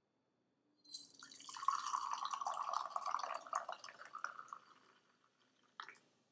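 Fizzy lemon soft drink poured from a can into a glass: a steady splashing stream with a fine crackle of bubbles, starting about a second in and trailing off about five seconds in. A brief tap follows near the end.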